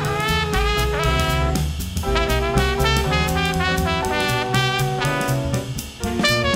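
Small swing band playing an up-tempo jazz tune: tenor, alto and baritone saxophones and trumpet over piano, guitar, double bass and drum kit, with a brief break in the playing near the end.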